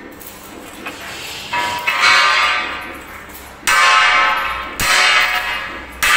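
A few loud bell-like ringing tones, each starting sharply and dying away slowly over a second or two.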